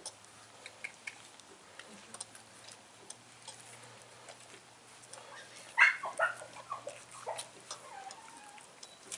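Suckling puppies give a short burst of high yelps and squeaks about six seconds in, then a brief whine.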